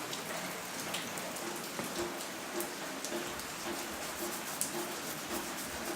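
Steady rain falling, with many individual raindrops ticking sharply close by.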